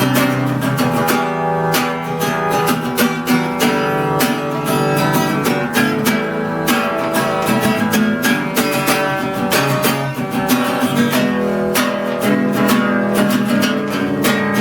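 Acoustic guitar strummed, a continuous run of chords with many quick strokes.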